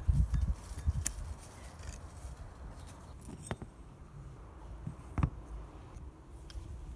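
Small clicks and knocks of rusty steel hand-drill parts and a screwdriver being handled during disassembly, with a few sharp single clicks about one, three and a half and five seconds in.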